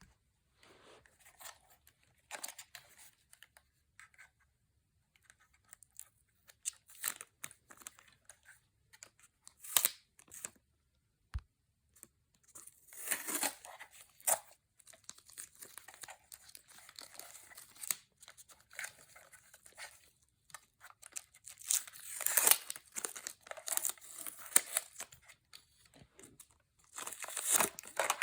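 Sticky tape being peeled off in several rasping tearing bursts, with crinkling, the loudest about halfway through and near the end.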